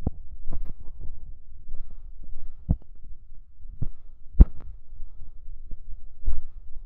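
Footsteps on cobblestone paving with irregular low thumps of a handheld phone's microphone being jostled, over a steady low rumble; the loudest thump comes about four and a half seconds in.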